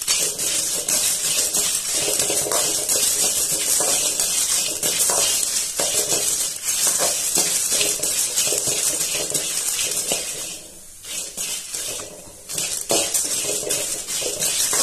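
Whole spices (coriander seeds, split dal, dried red chillies) being dry-roasted and stirred with a metal ladle in a metal kadai: a dense, continuous rattle and scrape of seeds and ladle against the pan. It drops off briefly twice, a little after ten and twelve seconds in.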